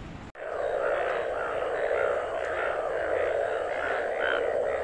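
Mating chorus of Indian bullfrogs, starting abruptly a moment in: a dense steady mass of croaking, with single louder calls repeating about twice a second over it.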